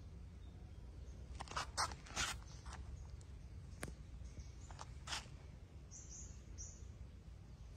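Outdoor background rumble with scattered short clicks and rustles in the first five seconds, then a few faint, high chirps.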